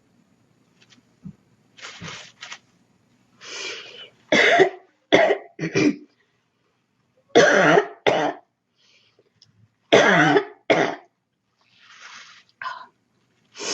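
A girl coughing in short fits of two or three coughs at a time, a couple of seconds apart.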